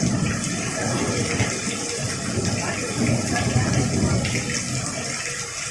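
Heavy rain pouring down as a steady rushing noise, with no clear thunderclap.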